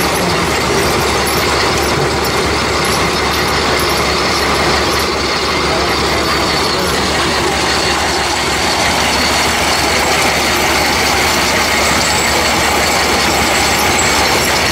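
Horse-powered feed grinder running, driven by a sweep and tumbling rod: a steady, loud clattering and grinding from the mill and its drive gearing.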